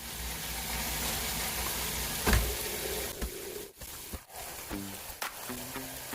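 Food sizzling as it fries in a hot pan, a steady hiss, with a single sharp knock a little over two seconds in.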